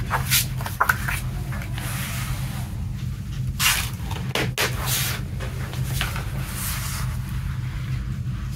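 Printed booklet pages and a folded paper poster being handled on a table: pages turned, sheets slid and laid flat, giving a string of short papery rustles that die away near the end, over a steady low hum.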